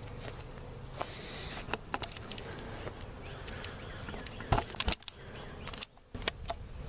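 Handling noise from a camera being picked up and moved: rustling, scattered clicks and several sharp knocks, the loudest pair a little past the middle, with a brief muffled moment near the end.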